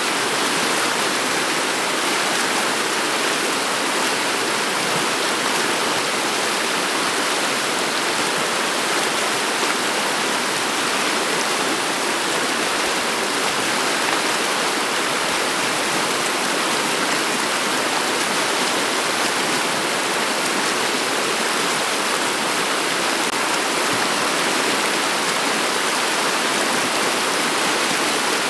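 Shallow river water flowing over a pebble bed, a steady, even rush of running water.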